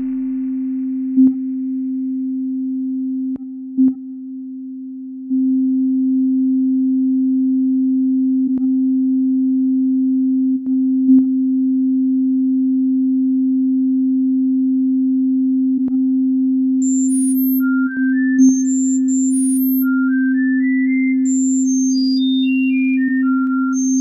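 Synthesized sine-wave tones in 5-tone equal temperament. One steady low-mid sine tone is held throughout, quieter for a couple of seconds near the start, with a faint click every few seconds. From about two thirds of the way in, high beeping sine tones run stepwise up and down the scale, like a hearing test.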